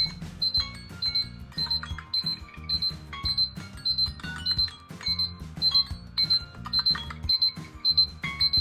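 Smartphone alarm tone playing: a musical alarm with a high beep repeating about twice a second over a melody and bass line.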